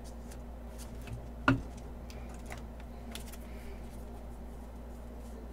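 Trading cards being handled and flipped through: soft ticks and rustles, with one sharper click about a second and a half in, over a faint steady hum.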